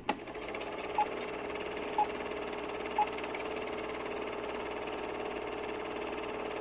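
Film projector sound effect: a steady mechanical whirr and fast rattle, with three short beeps a second apart near the start, like a film countdown.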